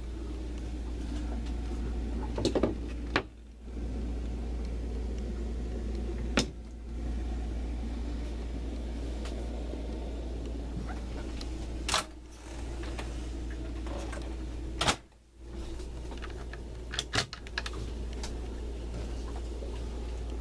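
A steady low hum, with a handful of sharp knocks and clicks scattered through it, each followed by a brief drop in level.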